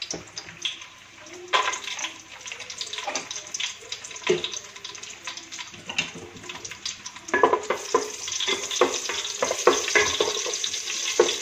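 Raisins and cashew nuts sizzling in hot ghee in an aluminium pot. In the second half a wooden spatula stirs them, and the sizzling grows louder with scraping and knocking against the pot.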